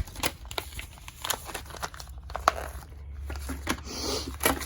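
Rummaging through a container: irregular crinkling and rustling with many small clicks and knocks of items being handled.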